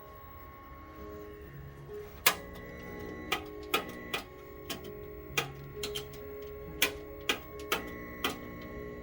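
About a dozen sharp, irregularly spaced clicks or snaps, starting a couple of seconds in, over faint steady and changing tones.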